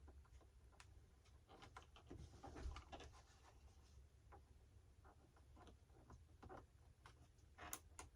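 Faint small clicks and rustles of hands handling plastic servo lead plugs and wiring, with a sharper double click near the end.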